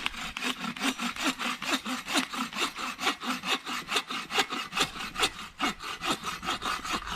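Hand saw cutting through a piece of firewood with steady back-and-forth strokes, about three to four a second.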